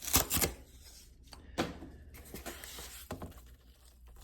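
Soft handling noises from a shrink-wrapped vinyl LP sleeve being turned over and rubbed: two brief rustles at the start, then faint rubbing with a couple of light knocks.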